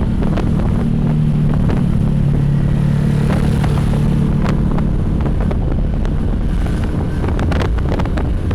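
Wind buffeting the microphone over the steady hum of a moving vehicle's engine, heard while riding along a road.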